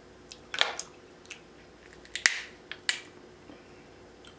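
Close-miked eating sounds of sauce-coated snow crab meat: several sharp, wet clicks and smacks of lips and mouth, the loudest about half a second and a little over two seconds in.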